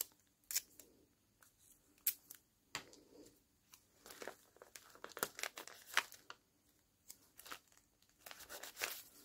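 Short, scattered crackles and rustles of gold washi tape being torn off its roll by hand and pressed onto a cellophane bag, the clear plastic crinkling under the fingers.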